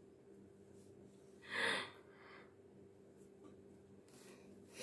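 A person blowing their nose into a tissue: one short, noisy blow about a second and a half in, with a second, shorter breathy sound near the end.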